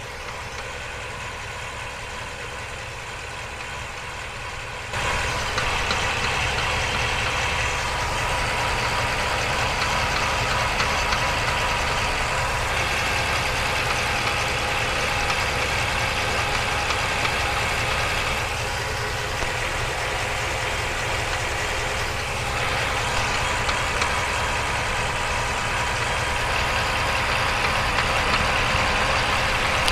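Ford F-350's 7.3 V8 idling, heard from underneath the truck close to its 10-speed automatic transmission, with a knocking noise that the owner believes comes from the transmission rather than the engine. It gets louder about five seconds in.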